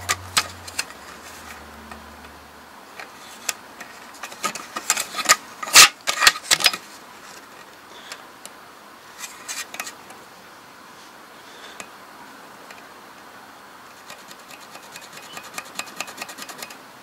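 A steel tape measure and carpenter's pencil being handled against a rimu rifle-stock blank: scattered small clicks and rubs, loudest in a cluster of sharp ticks about five to seven seconds in, and a run of light ticks near the end as the pencil marks the wood.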